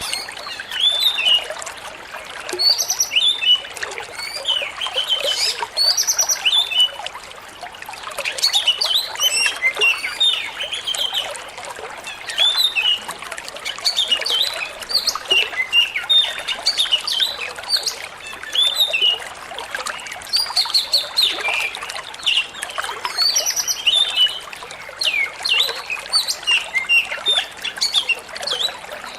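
Oriental magpie-robin singing a fast, unbroken run of varied chirps and whistles over steadily trickling water.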